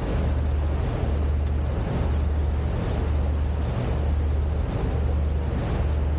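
Boat engine running with a steady low drone, under an even hiss of wind on the microphone and water rushing past the hull.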